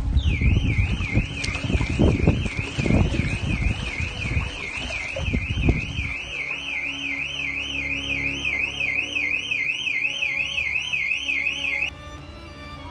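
Car alarm siren sounding, a high wail sweeping up and down about two and a half times a second, then cutting off suddenly near the end. Loud rushing water and rumble sit under it in the first half.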